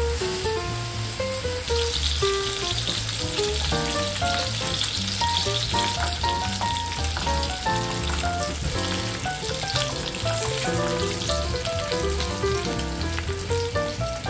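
Bacon strips frying in a nonstick skillet, a steady sizzle that grows louder about two seconds in. Background music with a melody and bass line plays throughout.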